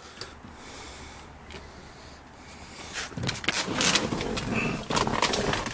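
Rustling and rubbing handling noise as someone climbs into a car's front seat with the camera. It is faint at first, then louder and scrapier from about three seconds in, with a few light knocks.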